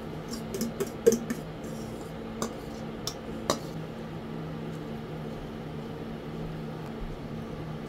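Kitchenware being handled on a counter: a handful of sharp clinks and knocks of pots, a glass baking dish and a metal box grater being moved and set down in the first three and a half seconds, the sharpest about a second in. A steady low hum runs underneath.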